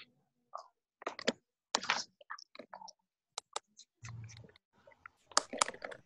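Scattered clicks and knocks, with a short low hum about four seconds in: handling noise from a student's microphone being checked, heard over a video call.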